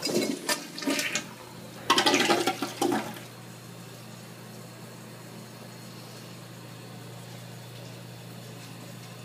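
Kohler Wellworth Class Five toilet flushing: a loud rush and gurgle of water for about three seconds, then a steady, quieter hiss of water as the tank refills.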